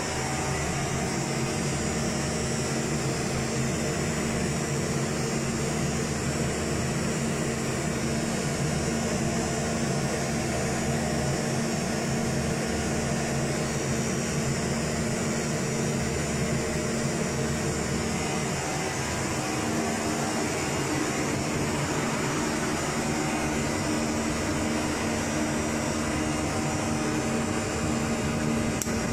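Steady machine hum, like running cooling equipment, with a few held low tones over an even whir.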